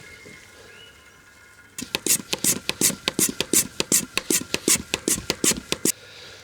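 Manual vacuum oil extractor being hand-pumped in quick strokes to build vacuum and draw engine oil up the dipstick tube. Each stroke is a short rush of air, about five a second, starting about two seconds in and stopping near the end.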